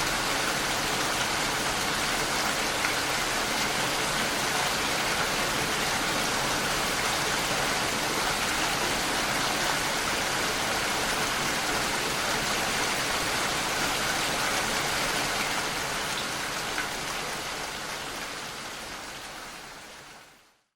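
Steady rain falling, a dense even patter that fades out smoothly over the last few seconds.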